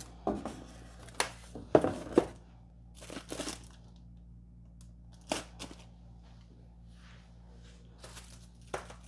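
Plastic zip bags of kit parts crinkling and crackling as they are handled and set back into a cardboard box: a cluster of sharp crackles in the first few seconds, then two single ones later.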